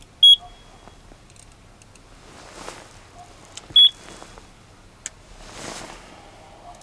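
Electronic carp bite alarm giving two short, high beeps about three and a half seconds apart, set off by hand at the rod pod.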